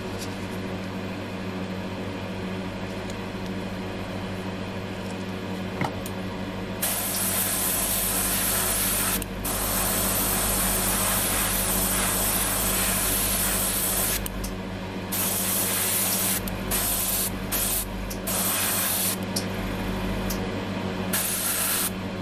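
Airbrush spraying paint: a steady hiss that starts about seven seconds in and runs for several seconds, then comes in a run of short bursts, over a constant low hum.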